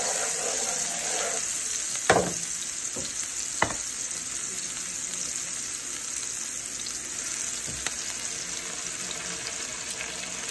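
Minced garlic sizzling in hot oil in a frying pan, a steady hiss. Two sharp knocks come about two and three and a half seconds in.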